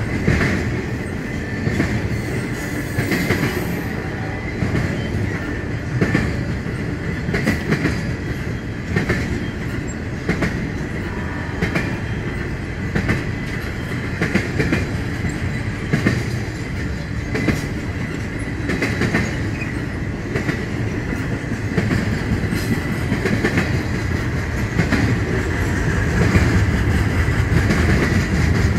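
Intermodal freight train cars rolling past. The wheels click over rail joints in an even rhythm about every second and a half, over a steady rumble and a faint high squeal, growing a little louder near the end.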